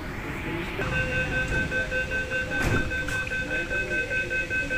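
Metro train's warning chime: a rapid, evenly pulsing electronic beep of several steady high tones together, starting about a second in. A single knock sounds in the middle.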